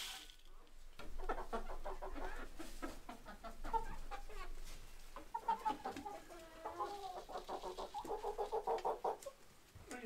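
Chickens clucking, many short calls overlapping, with a quick run of clucks near the end.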